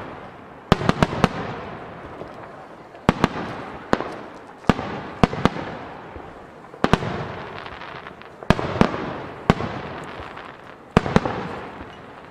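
Japanese starmine fireworks barrage: aerial shells bursting with sharp bangs one after another in uneven clusters, about a dozen in all, each trailing off in a long rolling echo.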